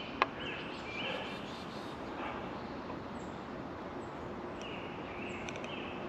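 Woodland ambience: a steady soft background hiss with small birds chirping several times. A single sharp click comes just after the start.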